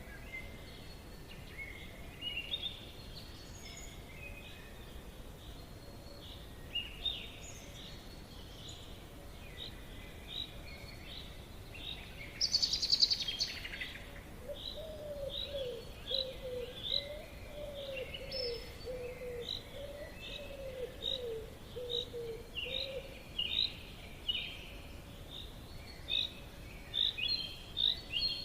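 Forest birds chirping: many short chirps repeating, with a louder, harsher call about 13 seconds in and a low warbling call running for several seconds after it, over a faint steady background hiss.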